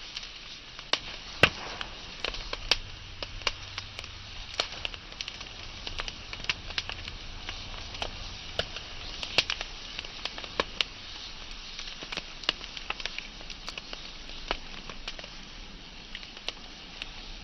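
Wood fire burning with frequent irregular crackles and sharp pops over a steady hissing. The loudest pop comes about a second and a half in.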